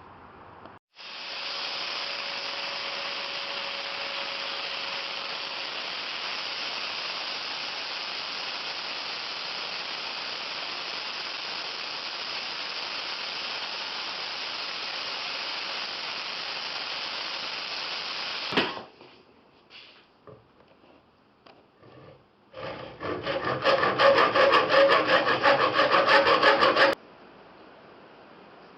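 Steady abrasive rubbing that runs for about seventeen seconds and stops suddenly. After a short pause with a few small clicks comes about four seconds of loud, rapid back-and-forth scraping strokes.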